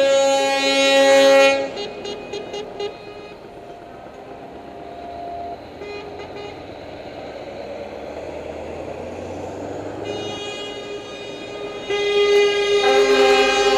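Truck air horns sounding a loud chord of several tones at once. The chord cuts off about two seconds in and is followed by a few short toots. Then comes a quieter stretch of low engine hum and background noise, and a second long horn blast starts about twelve seconds in.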